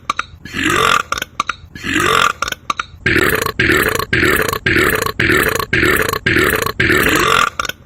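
A man's belch repeated over and over as an evenly spaced loop of identical copies. It comes about every three-quarters of a second at first, then quickens to about twice a second from about three seconds in.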